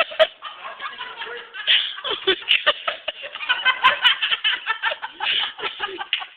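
People laughing hard, in quick repeated bursts of laughter.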